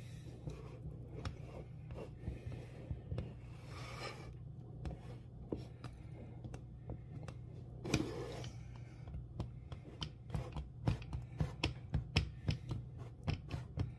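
A fork crimping pie crust onto the rim of a metal pie tin: soft presses and light clicks of the tines on the tin, coming faster and more often in the last few seconds, over a low steady hum.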